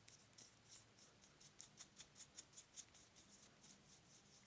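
Faint, quick strokes of a soft-bristled lens brush swept across a lens's glass, about five strokes a second, brushing off lint; the strokes thin out near the end.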